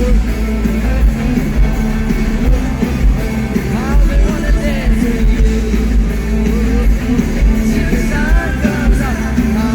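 A live rock band playing at full volume, with singing heard now and then over the guitar, bass and drums.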